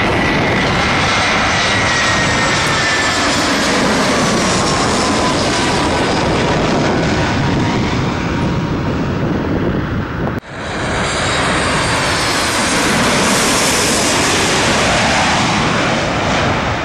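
Twin-engine jet airliners passing low overhead as they come in to land. The jet engines run with a loud roar and whine, and the whine falls in pitch as the first aircraft passes. After a sudden cut about ten seconds in, a second jet's roar swells up.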